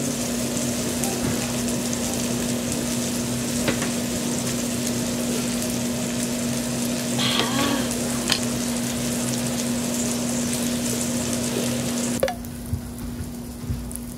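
Food sizzling and frying in a pan: a steady hiss over a low hum, with a few light clicks of tableware. It stops abruptly near the end.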